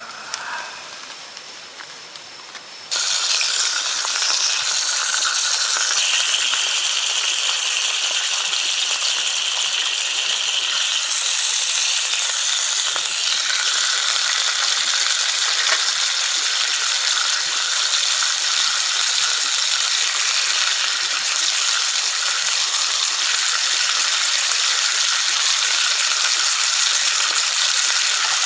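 Marinated pork loin slices sizzling in a frying pan over a camping gas stove. The sizzle jumps up suddenly about three seconds in, then holds loud and steady.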